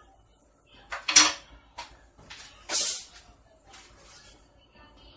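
Kitchen handling noises: two loud, short scraping clatters, about a second and just under three seconds in, with a few lighter knocks between and after.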